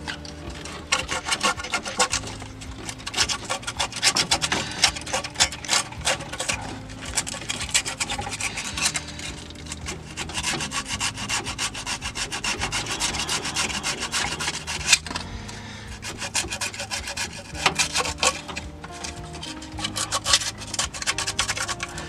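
Sandpaper rubbed by hand in quick back-and-forth strokes over the coolant flange mounting face on a VW Mk1 Citi Golf engine, scraping off old gasket material so the new gasket can seat. The strokes ease briefly about two-thirds of the way through, then pick up again.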